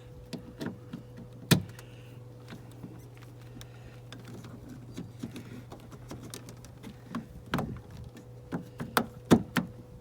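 Scattered sharp plastic and metal clicks and knocks as a replacement exterior door handle is worked back into a truck door, the loudest about a second and a half in and a quick run of them near the end. A steady low electrical hum runs underneath.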